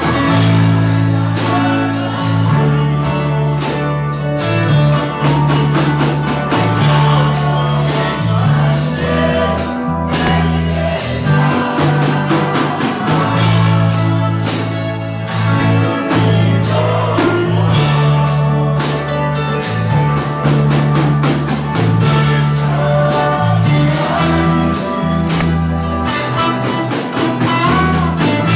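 Band music with guitar, a stepping bass line and drums, with singing.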